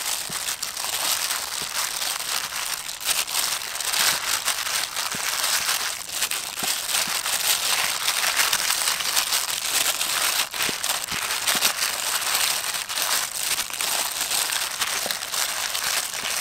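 Disposable plastic gloves crinkling as hands toss raw chicken drumsticks through a steel tray of flour: a continuous crinkly rustle dotted with many small crackles.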